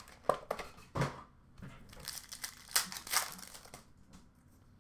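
Trading-card pack wrapper crinkling and tearing open as a pack of hockey cards is opened, with a few sharp handling clicks in the first second.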